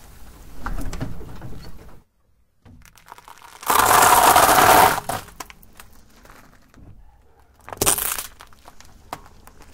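Dry penne pasta crunching and cracking under a slowly rolling car tyre for about a second and a half. A second brief, sharp crunch comes near the end as another object is squashed under the tyre.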